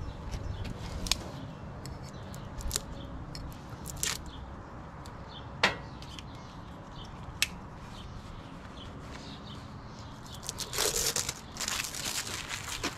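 Hand-handling of a new spin-on fuel filter and its metal canister: scattered light clicks and taps, two of them sharper, then a couple of seconds of rustling and scraping near the end.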